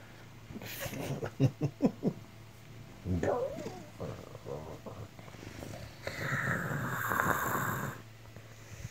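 Tabby cat purring right at the microphone, with close scratchy rustles and a brief bending cry about three seconds in.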